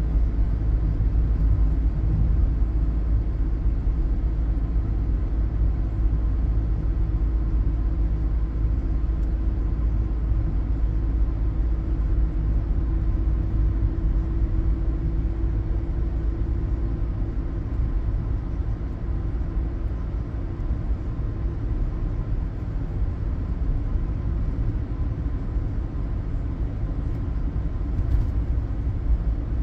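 Steady low road and engine rumble inside the cabin of a moving VW Caddy, holding an even pace throughout.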